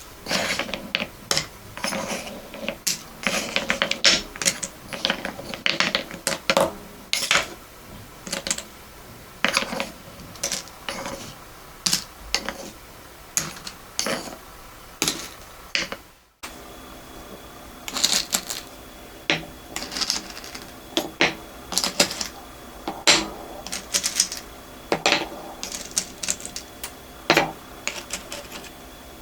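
Beads clicking and rattling as they are sorted and stirred with a wooden spoon: a busy, irregular run of sharp clicks and short rattles, cut by a brief drop-out about halfway.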